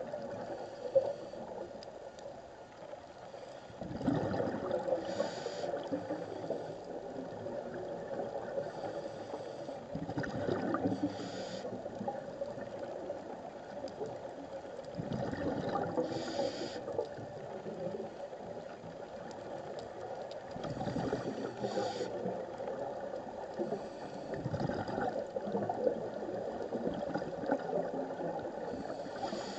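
Scuba diver breathing through a regulator, heard through an underwater camera: regular breaths about every five to six seconds, each with a short hiss and a burst of bubbling, over a steady underwater hiss.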